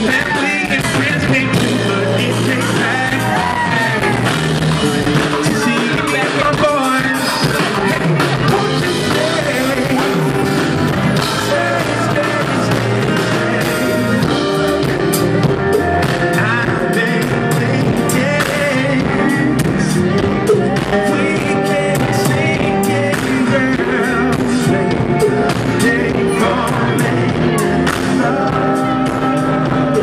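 Live R&B band performing: a male lead singer over drums, saxophone and the rest of the band.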